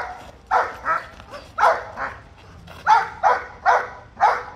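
A shepherd dog on a leash barking hard in a series of about nine sharp barks, roughly two a second, with a short pause midway. This is guard barking at a man acting as a threatening stranger in protection training.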